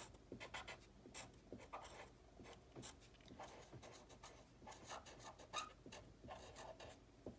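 Faint scratching of a pen tip on paper as a word is written out in many short strokes.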